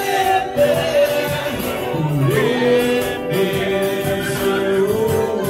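Live band music with a singer holding long notes and sliding between pitches over steady accompaniment.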